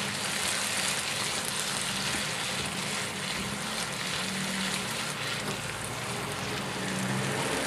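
Diced vegetables sizzling in a nonstick frying pan while a spatula stirs them, with light scraping of the spatula on the pan.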